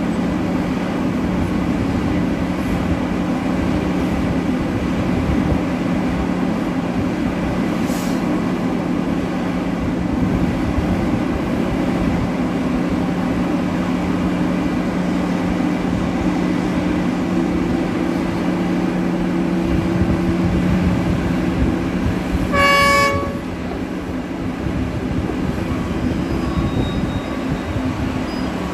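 Heavy diesel mining machinery, a Liebherr 9350 excavator and a Cat 777E haul truck, running steadily under load, with one short horn blast near the end.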